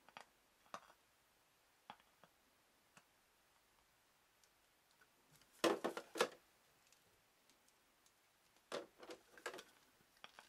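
Hard plastic parts handled: a PVC figure and its black plastic display base clicking and knocking against each other and against a clear plastic blister tray. Scattered light clicks, with a cluster of quick clatters about halfway through and another near the end.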